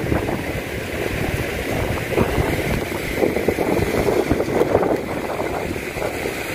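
Steady rushing of falling water from a nearby waterfall spout, loud enough to cover other sounds.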